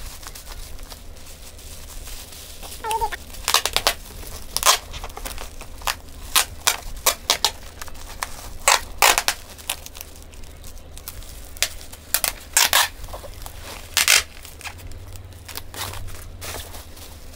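Plastic bubble wrap crinkling and crackling in short, sharp bursts as it is folded and pressed around a package by hand.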